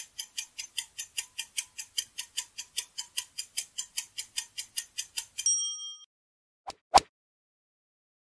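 Countdown-timer sound effect: a clock ticking fast, about five ticks a second, for about five seconds. It ends in a bright bell ding as time runs out, followed a second later by two quick clicks, the second one the loudest.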